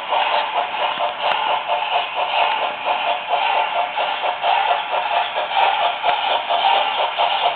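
Sound decoder of a Märklin BR 10 model steam locomotive playing a steady, rhythmic steam chuffing through its small built-in speaker, with the model running along the track.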